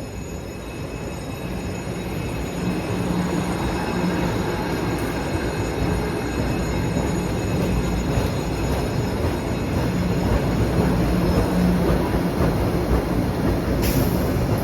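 MBTA Blue Line train running on the rails, its rumble growing steadily louder as it comes closer, over a steady low hum.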